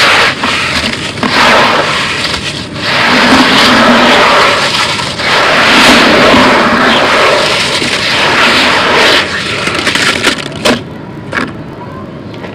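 Hands digging into and squeezing crumbled concrete grit in a plastic tub: continuous gritty crunching and scraping that swells and eases in waves. Near the end it stops, with a couple of sharp cracks, and drops to a quieter hiss.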